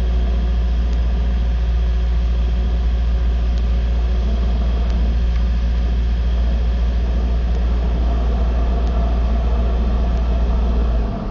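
Engine idling with a steady low rumble, which drops away abruptly near the end.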